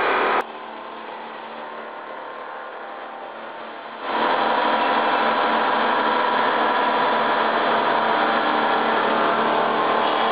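Heavy CNC milling machine with a large face-milling cutter machining a big metal casting: a steady machining noise with several held tones. It drops to a quieter level just after the start and comes back louder about four seconds in.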